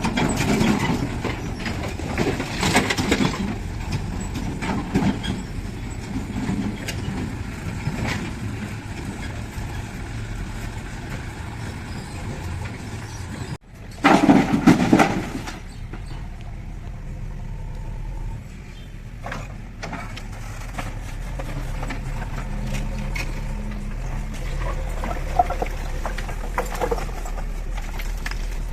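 Diesel engine of a JCB 3DX backhoe loader running under work, with scattered clanks. About halfway through the sound cuts off abruptly and comes back with a brief louder surge before settling into a steady run.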